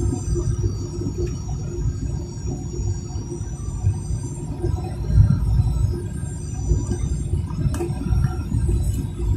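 Cabin noise inside a Boeing 737-800: heavy low rumble under the high whine of its CFM56-7B jet engines, which glides down and up in pitch several times as the thrust changes.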